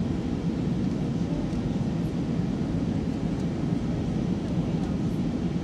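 Steady cabin noise of an Airbus A320-232 on descent, heard from inside the cabin: an even, low rumble of airflow and its IAE V2500 turbofan engines.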